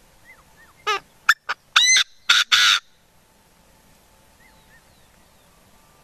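A black francolin calling: one loud, harsh phrase of about six notes lasting about two seconds, starting about a second in. It opens with a rattling note that falls in pitch, goes on with short clicks and rising squeaky notes, and ends on a rasping note. Faint chirps of small birds come before and after it.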